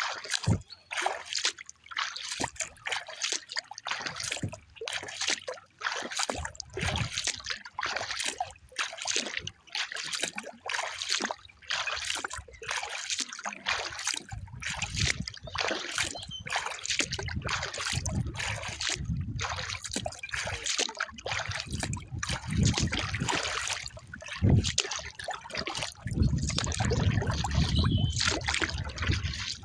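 Water splashing and trickling around a kayak hull on the lake, with irregular splashes throughout. A low wind rumble on the microphone comes in about halfway and is strongest near the end.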